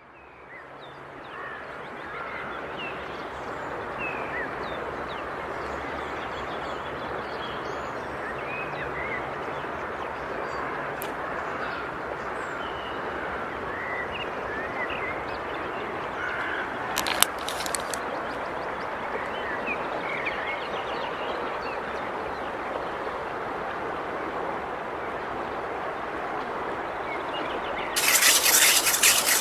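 Forest ambience: a steady, dense chorus of wild animals full of short bird chirps, fading in at the start. Near the end a much louder rasping buzz with fast pulses starts abruptly.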